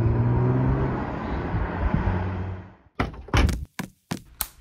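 Animated sound effect of a car engine running, a steady low hum that fades out after about two and a half seconds. It is followed by a quick run of sharp knocks and clicks near the end.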